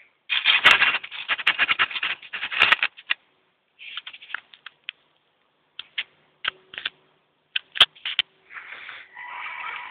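RC scale crawler driven by a 19-turn brushed electric motor, clattering and whirring as its tyres and chassis scrabble over firewood logs. A dense run of rattling clicks comes in the first three seconds, then scattered sharp clicks and short bursts.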